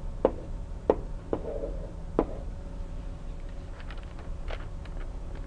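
A few sharp taps of a stylus pen on a tablet screen while numbers are handwritten, spread over the first couple of seconds, over a faint low room hum.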